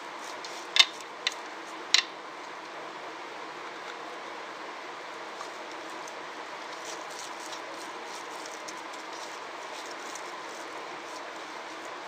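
Hands working a wet spice marinade into fish pieces in a ceramic bowl: three sharp clicks in the first two seconds, then faint soft handling sounds over a steady background hiss.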